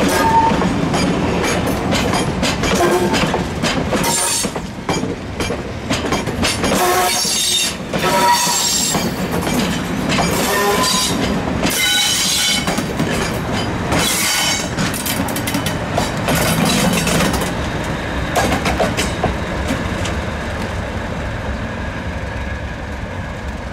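Slow-moving train of passenger coaches rolling past over jointed track and points: repeated wheel clicks and knocks with brief wheel squeals. About halfway through, a Class 37 diesel locomotive with an English Electric V12 engine goes by at the rear, and the sound slowly fades as the train moves away.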